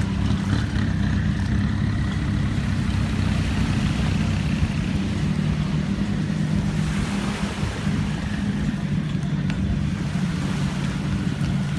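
Longtail boat engine running steadily at an even pitch, with wind and water noise.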